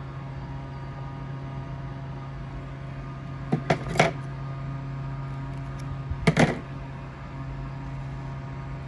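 A steady low electrical hum, with two short clusters of clicks and taps from handling a serger sewing machine while threading it, about three and a half and six seconds in.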